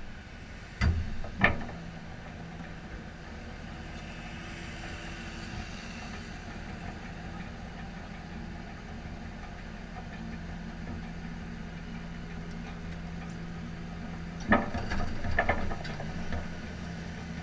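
A vehicle engine idling steadily, with two sharp knocks about a second in and a short run of knocks near the end.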